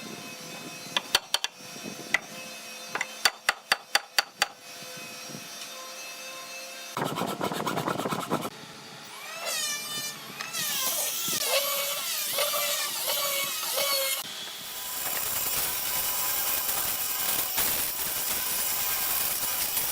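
Hand woodworking on hardwood: a run of sharp knocks in the first few seconds, then a rasping, saw-like stretch with squeaks, and from about three-quarters of the way through a steady hissing tool noise.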